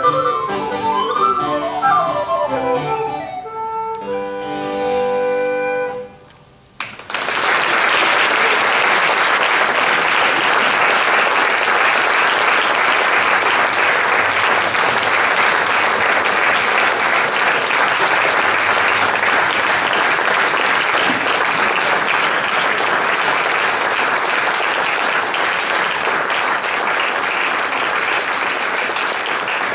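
A woodwind and harpsichord play quick descending runs and close on a held final note about six seconds in. After a brief pause, an audience breaks into long, steady applause.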